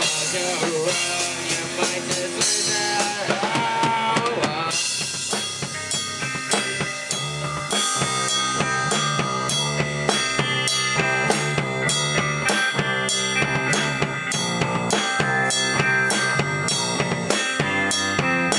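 Rock band rehearsing: a drum kit with bass drum, snare and cymbals played hard alongside electric guitar. The first few seconds are a wash of cymbals with bending guitar notes, then a steady driving beat settles in.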